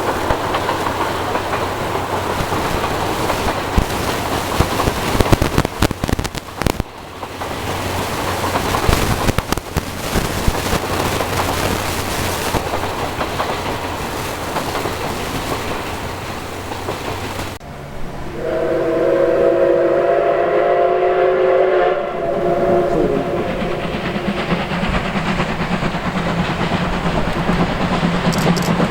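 JNR Class C57 steam locomotive passing close by at speed: a loud, dense rush of steam and running gear with sharp clacks. After a cut about 17 seconds in, its steam whistle sounds one blast of several tones together, lasting about three and a half seconds. The locomotive's steady working exhaust follows, and the whistle starts again at the very end.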